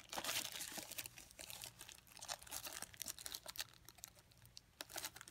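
Clear plastic wrapper on a pack of sanding sheets crinkling and crackling as it is handled, in irregular bursts that are busiest in the first two seconds and come again briefly near the end.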